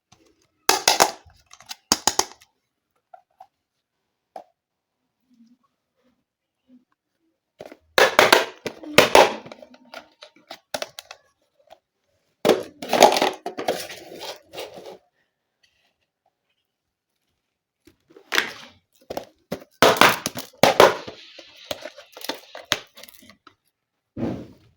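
Plastic toy kitchen pieces and their packaging being handled in four bursts of clicking, tapping and crinkling, with dead silence between.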